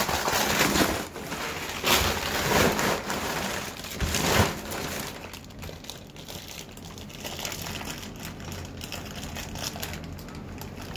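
Packaging crinkling and rustling as a boxed model train car is opened and unwrapped, loudest in the first few seconds, then fainter crackling.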